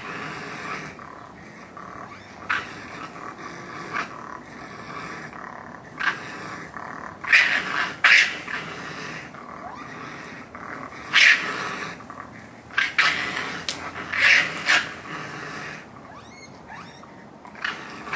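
Two raccoons fighting, growling and snarling at each other in short outbursts every second or two, several coming close together near the middle.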